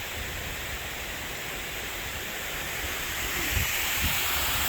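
Steady rushing noise of light wind and flowing river water, getting slowly a little louder.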